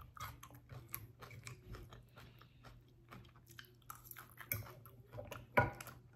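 Close-miked mouth sounds of a person chewing food: soft, irregular wet clicks and smacks, with one louder knock near the end.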